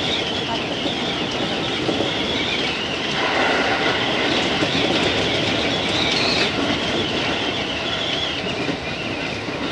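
JR East 205 series electric train running at speed, with the wheels rolling over the rails and a wavering high squeal from the wheels coming and going.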